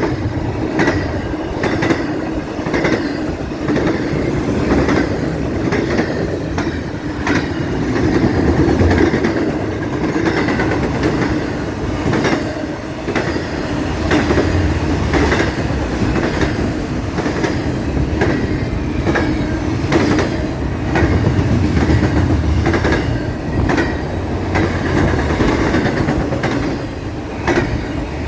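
CSX intermodal freight train's cars rolling past at speed: a steady rumble with a regular clickety-clack of wheels crossing rail joints, more than once a second.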